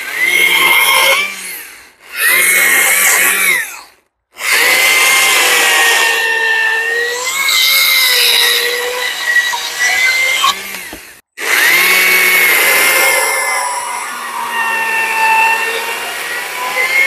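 Battery-powered Stihl chainsaw cutting into a Western red cedar log in several runs: the electric motor's whine climbs as the trigger is squeezed and wavers as the chain bites, with two brief full stops about four and eleven seconds in.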